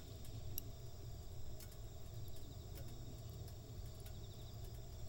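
Outdoor ambience: a steady low rumble with faint, rapid insect trills twice and scattered sharp clicks.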